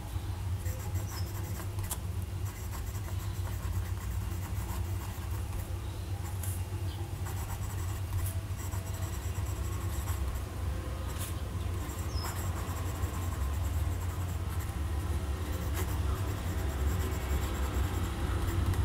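Parker IM fountain pen's medium steel nib scratching lightly across paper as words are written by hand, with small ticks as strokes start and stop. A steady low hum runs underneath throughout.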